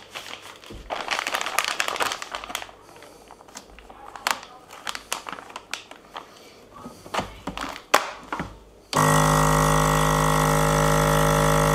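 A plastic vacuum bag rustles and clicks as it is handled and laid into a CASO vacuum sealer. About nine seconds in, the sealer's vacuum pump starts suddenly and runs with a loud, steady hum as it draws the air out of the bag.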